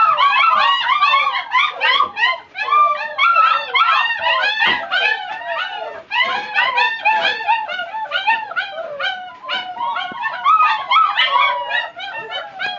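A litter of five-week-old black German shepherd puppies whining and yelping together, many high calls overlapping without a break: hungry puppies crying to be fed while their food is being prepared.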